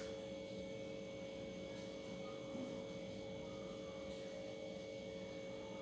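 Steady electrical hum made of a few fixed tones, with faint strokes of a marker writing on a whiteboard.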